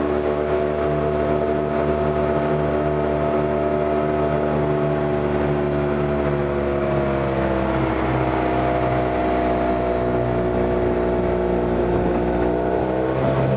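Arctic Cat Wildcat Trail side-by-side's engine running steadily as it drives up a mountain road. Its drone drops a little in pitch about halfway through and rises again near the end.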